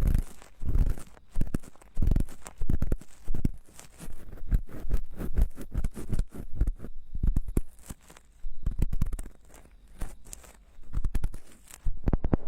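Ear-cleaning tools scraping and rubbing inside a silicone binaural-microphone ear, heard very close as irregular crackly strokes, each with a deep thud.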